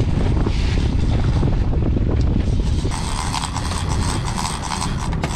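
Wind buffeting the microphone over the running outboard motor of a trolling boat. From about three seconds in, a fishing reel's drag clicks rapidly as line is pulled off by a hooked fish.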